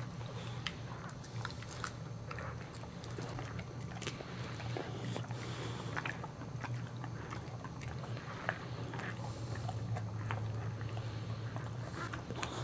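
Boxer mother licking and mouthing her newborn puppy to clean it: irregular wet licking, smacking and chewing clicks, over a steady low hum.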